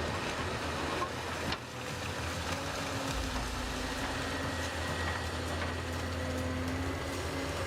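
Heavy earthmoving machinery, a diesel engine running steadily with a low rumble. There is a brief drop and change in the sound about a second and a half in, and a faint steady hum joins after that.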